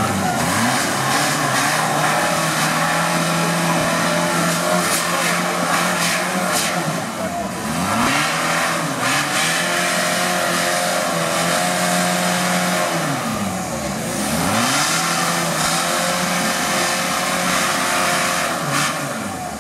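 Engine of a tube-frame off-road trial special 4x4 crawling up a rock section. It holds a steady, loud pitch for several seconds, then the revs dip and climb again twice as the buggy works over the rocks.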